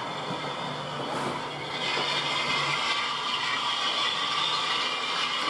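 Model train running on the layout's track, a steady mechanical rolling noise that gets louder about two seconds in.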